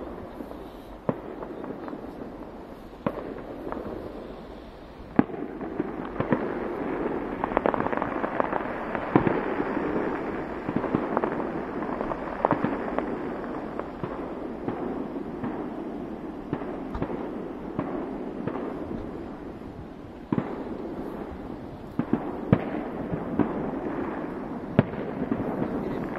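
Fireworks display: aerial shells bursting, with many sharp bangs over a dense crackle. The crackle thickens about a fifth of the way in, thins past the middle and picks up again near the end.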